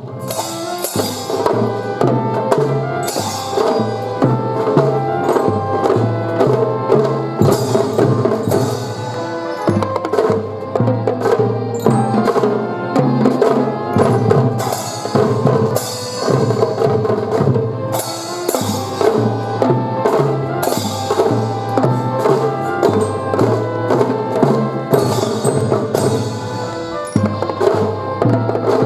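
Children's drum-and-fife band playing a marching tune: drums keep a steady beat under melody instruments, starting abruptly at the beginning.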